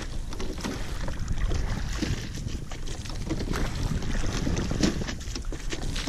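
Single rowing scull under way: water rushing along the hull and oars, with scattered sharp clicks and knocks from the oars working in their oarlocks, over a low rumble of wind on the microphone.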